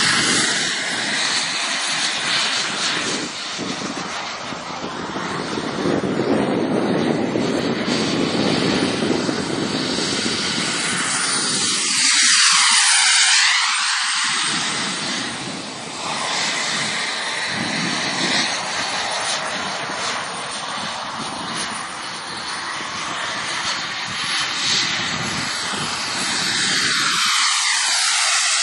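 Fighter jet's engine noise during low passes, rising and falling as the jet flies by. It is loudest about twelve seconds in, with a sweeping whoosh as it passes, and swells again with another pass near the end.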